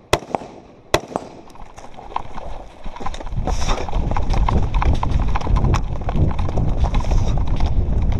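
Two rifle shots in the first second, then after a short pause the heavy, rapid thud of running footsteps on gravel with loud rumble from the body-worn microphone being jostled.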